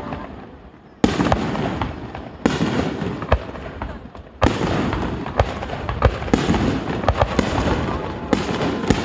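Aerial fireworks shells bursting: four loud booms, each trailing off in a long rumble, with sharper cracks in between.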